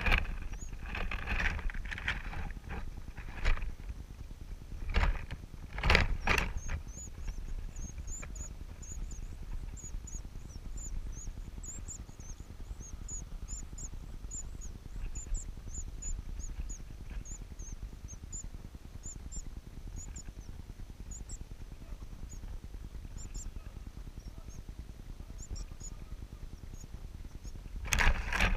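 Nestlings in a rufous-collared sparrow nest, one of them a parasitic shiny cowbird chick, giving a long series of thin, very high begging peeps, about two or three a second. A few loud rustling bumps come in the first seconds and again near the end.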